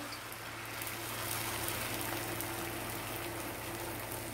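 Egg omelet frying in a pan, a steady sizzling hiss.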